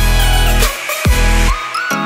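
Background electronic dance music in a dubstep style: heavy bass notes that cut out twice and return, quick falling sweeps, and a high gliding lead line.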